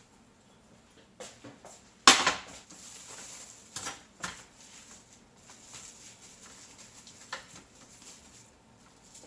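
Kitchen handling sounds from dishes and utensils: a sharp clatter about two seconds in with a brief rustling after it, then a few lighter knocks.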